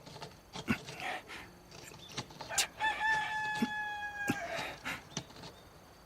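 Rooster crowing once, one long held call about halfway through, among scattered sharp knocks of a knife carving wood.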